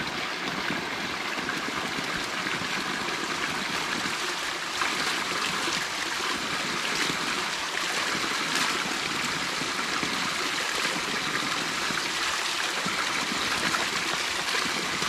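A thin jet of spring water pouring from a hillside bank and splashing steadily onto rocks.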